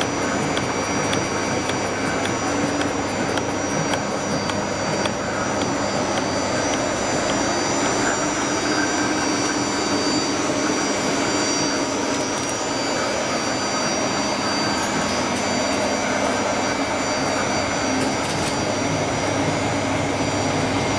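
Bolt thread rolling machine running steadily, a dense mechanical hum and whir with a faint regular ticking, about two ticks a second, that fades out about halfway through.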